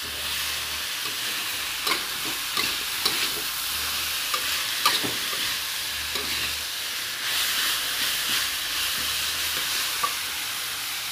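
Bean sprouts, tempe and animal skin stir-frying in a metal wok, nearly cooked: a steady sizzle, with the metal spatula scraping and clicking against the pan at irregular moments.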